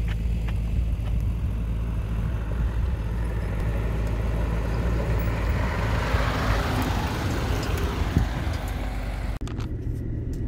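Nissan Y62 Patrol's 5.6-litre V8 driving along a rough unsealed road: a steady low engine hum under tyre and road noise that swells midway, with a single knock about eight seconds in.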